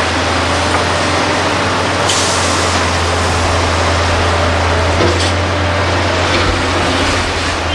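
Diesel engine of a large crawler excavator running under load while it loads broken rock into a tipper truck: a steady deep drone, with a few short hissing bursts about two, five and seven seconds in.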